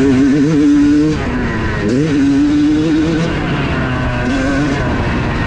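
Yamaha YZ250 single-cylinder two-stroke motocross engine revving under throttle, heard from the bike with wind noise on the microphone. The engine note holds high, backs off just after a second in, picks up again about two seconds in, and eases off again a little past three seconds.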